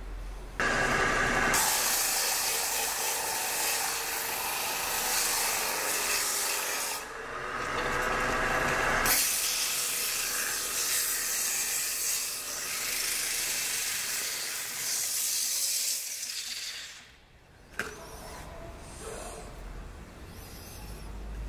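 Sandpaper held by hand against a segmented wooden disc spinning on a wood lathe: a loud, steady sanding hiss that starts about half a second in, eases for a couple of seconds around the middle, resumes, and stops about three-quarters of the way through. A single sharp click follows shortly after the sanding stops.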